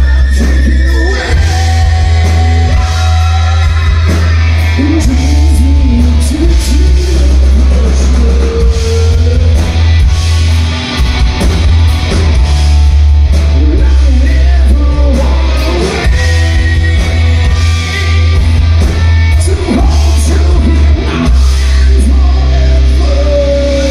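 Live rock band playing loud through a PA: a man sings into a microphone over electric guitar, a heavy bass line and drums.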